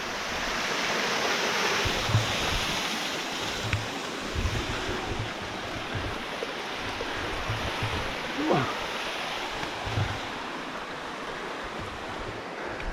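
Steady rush of falling water from a waterfall and creek, with scattered low thumps on the microphone and one short falling tone about eight seconds in.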